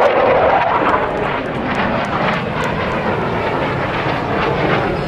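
Loud, steady jet engine noise from a military jet flying by overhead, easing a little in level after about a second.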